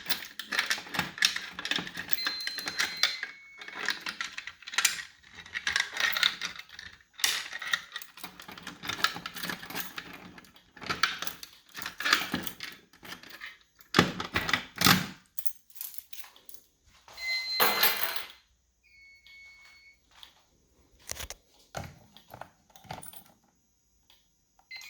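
Keys jangling and a run of sharp clicks and knocks as a fire alarm control panel is unlocked and reset with its key. A few short, high electronic beeps come from the panel along the way. The handling noise stops about three quarters of the way through.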